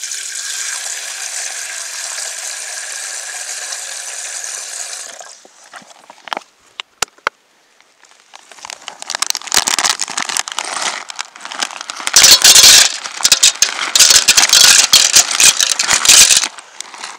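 Water pouring from a collapsible water carrier's tap into a metal cooking pot for about five seconds, followed by a few light clicks. From about halfway, a plastic bag crinkles and dry penne pasta rattles into the pot, loudest in the last few seconds.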